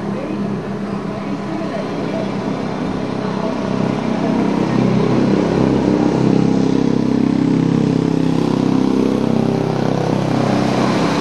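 A motor vehicle engine running steadily, growing louder about four seconds in, with indistinct voices.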